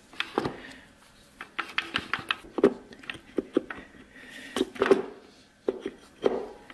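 Irregular metal clicks and light clunks as a 4L80E transmission's overdrive drum and input shaft are twisted back and forth by hand to seat the drum onto its clutch plates inside the case.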